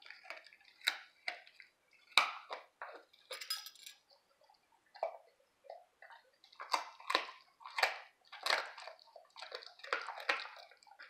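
A Labrador crunching and chewing dried raw pork bones: bursts of sharp, irregular cracks with short pauses between, a brief lull about halfway through.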